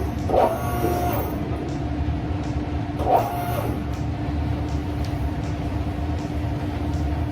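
Automotive lift's electric hydraulic pump motor running steadily, raising the car, with two brief louder surges about half a second and three seconds in.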